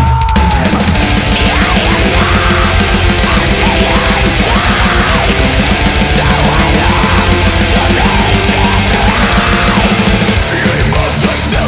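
Loud heavy rock music with a fast, steady beat.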